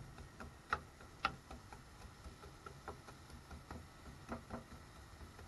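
Wooden spatula stirring diced onions in a nonstick frying pan, giving light, irregular taps and clicks of wood on the pan. The two sharpest knocks come close together about a second in.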